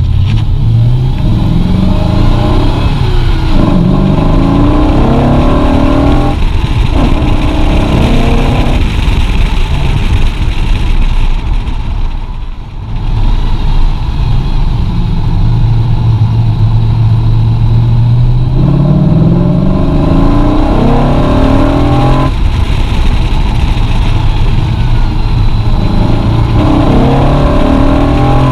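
The 2006 Audi B7 RS4's V8, running through a straight-piped exhaust with the centre silencer removed and the rear flaps held open, pulling hard through the gears: revs rise in pulls broken by gear changes, dip briefly about twelve seconds in, hold steady for a few seconds, then climb again. Heard from outside the car beside the front wheel.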